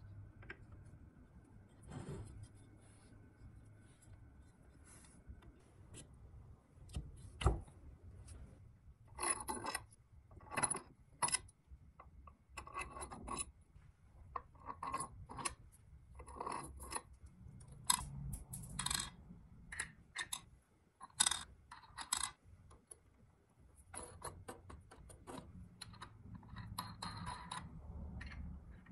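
Hands assembling a plastic tire mold: plastic parts knocking together, and steel bolts, washers and wing nuts clinking as they are dropped on and handled. The result is a series of irregular clicks and taps.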